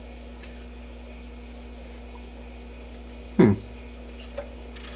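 Steady low electrical hum with a few faint clicks. About three and a half seconds in, a short, loud sound slides sharply down in pitch.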